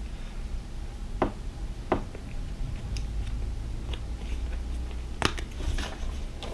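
Paper and packaging being handled: a sheet of stickers and an instruction leaflet rustling and crinkling, with a few sharp clicks and taps, the loudest about five seconds in.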